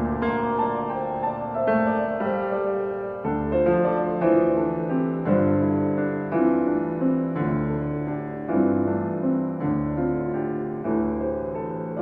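Background piano music: a gentle, slow piece of struck notes and chords over deep bass notes.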